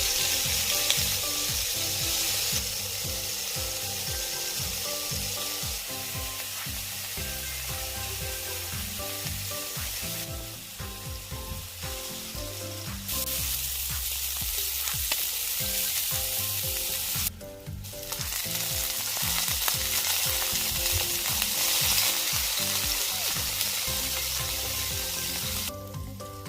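Food frying in hot oil in a pan, a steady sizzle that drops out briefly about two-thirds of the way through.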